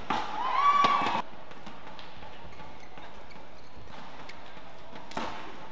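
Badminton racket striking the shuttlecock at the end of a rally, followed at once by a single high-pitched shout as the point is won, the loudest sound here. Steady arena crowd noise follows, and another sharp racket strike comes near the end.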